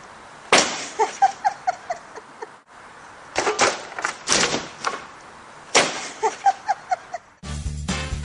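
People laughing in short repeated bursts, three times over, each burst set off by a sudden loud noise. Upbeat swing music begins near the end.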